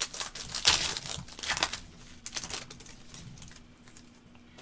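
Trading card pack being torn open and its wrapper crinkled, with cards rustling and clicking as they are handled: a rapid run of short crackles for about three seconds, dying away near the end.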